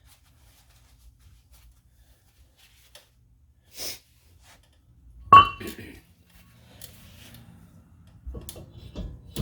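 Metal car parts and tools being handled during brake and hub reassembly: a sharp metallic clank with a brief ring about five seconds in, then several softer knocks and rattles near the end.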